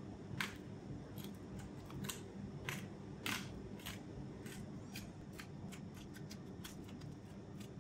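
Hand-twisted salt grinder grinding salt crystals, a run of irregular crunching clicks that come faster in the second half.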